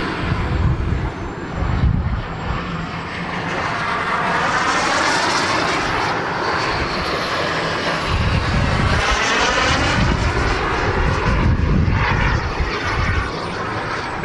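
Turbine engine of a radio-controlled model jet flying past: a steady rushing jet noise with a high whine that slowly falls in pitch as the plane goes by.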